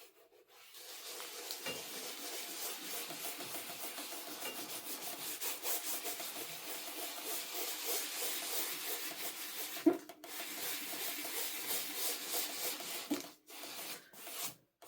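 Hand-sanding dried acrylic paint on a canvas with 180-grit sandpaper: quick back-and-forth rubbing strokes to knock down ridges in the thick paint. There is a brief knock about ten seconds in, and the steady sanding stops about thirteen seconds in, leaving only a few short strokes.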